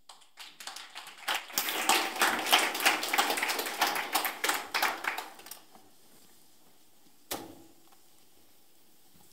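Audience applauding: the clapping swells, then dies away after about five seconds. A single thump follows near the end.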